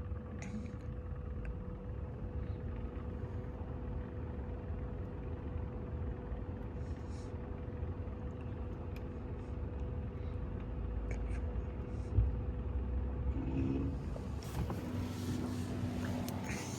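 A car running with a steady low rumble and a faint steady hum above it; near the end, louder rustling and knocking noises join it.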